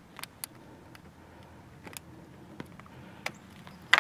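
Scattered small clicks and taps from hands working a plastic kick-down cable end onto the throttle cable's ferrule, with a sharper, louder click near the end.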